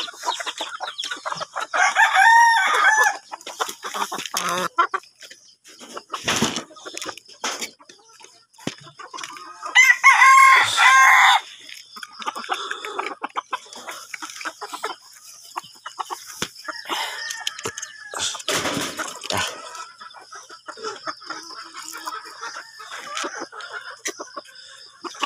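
A rooster crowing twice, a loud call of just over a second about two seconds in and again about ten seconds in, with chickens clucking softly between the crows.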